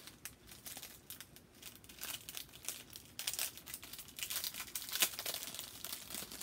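Small clear plastic jewelry packet crinkling as it is handled and opened, with irregular crackles that grow busier and louder from about two seconds in.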